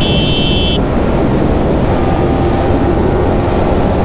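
Yamaha R15 V4's 155 cc single-cylinder engine running at highway speed, mixed with wind rushing over the microphone. A short high beep sounds in the first second.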